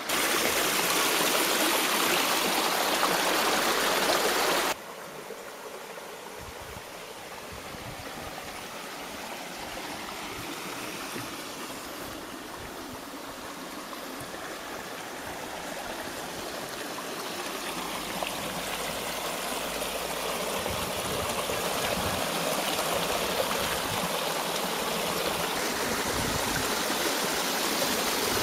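Water pouring from a pool's artificial waterfall, a steady rushing splash. It drops suddenly in loudness about five seconds in, then slowly grows louder again.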